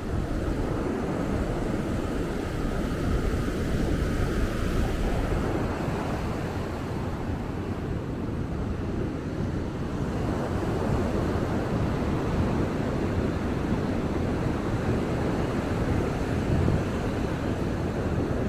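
Ocean surf breaking and washing on the beach, a steady rushing that swells a little a few seconds in, with wind rumbling on the microphone.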